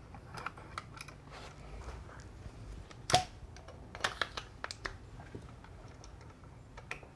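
Scattered light clicks and scrapes of stiff copper wires and a plastic duplex receptacle being folded and pushed back into an electrical box, with one louder click about three seconds in.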